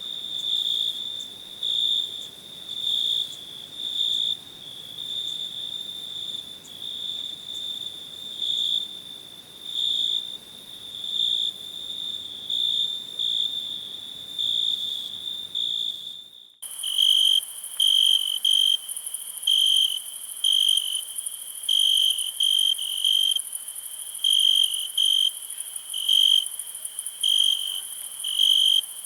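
Cricket chirping in a steady train of short, high chirps. About sixteen seconds in, the recording cuts abruptly to a cricket chirping a little lower and less regularly, over a steady high hiss.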